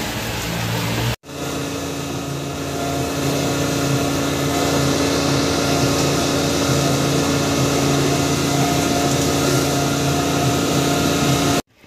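Suzuki 150 outboard motor running steadily as the boat moves across choppy sea, with wind and water rushing over it. The sound breaks off for a moment about a second in, at a cut, and stops abruptly near the end.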